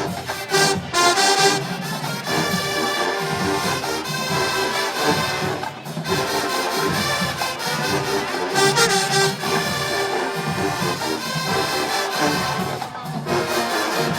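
HBCU show-style marching band playing a brass-led tune, with drums keeping the beat.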